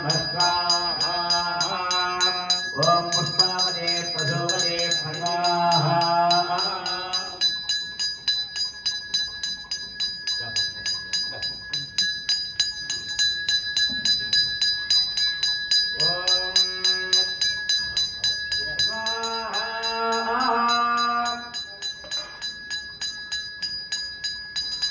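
A ritual bell rung in a fast, even rhythm throughout, its ringing held steadily. Over it, a man's voice chants mantras in a sing-song way at the start and in two shorter stretches later on.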